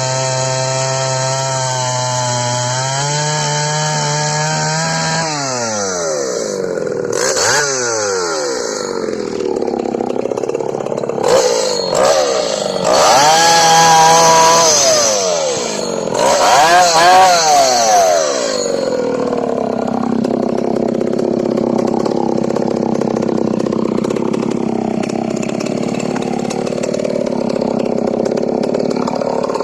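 Ported Husqvarna L77 two-stroke chainsaw running at steady high revs, its pitch stepping up slightly a few seconds in. About five seconds in the revs drop, and the saw is revved up and down sharply several times before settling into a steadier, lower running sound for the last third.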